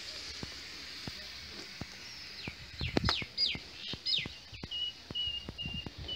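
Wood fire crackling and popping in a mud oven. Birds chirp with quick falling notes about halfway, then give a row of short, steady whistled notes near the end, over a couple of low thumps.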